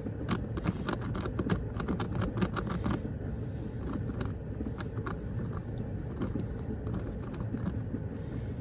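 Plastic clicking of a QiYi Megaminx being turned by hand: rapid clacking for about three seconds, then slower, scattered turns, over a low steady rumble.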